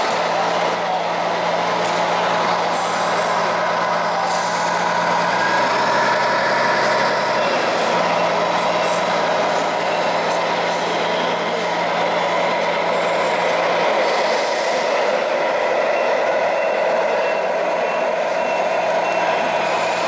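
Electronic sound units in 1/14-scale radio-controlled semi trucks playing diesel truck engine sounds through small speakers. The low engine note holds steady and changes pitch a few times, over a busy hall background.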